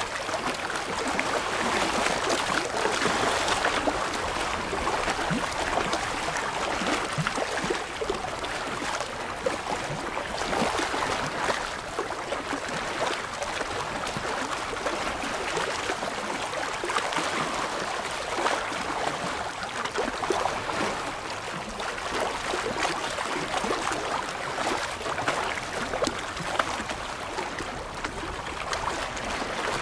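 Small waves lapping and splashing against shoreline rocks: a steady wash of water broken by many little irregular splashes.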